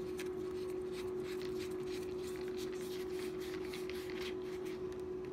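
Rubbing and light clicking of hands twisting and handling the plastic parts of a Hart 20V pressurized cleaner as a piece is screwed in, over a steady hum.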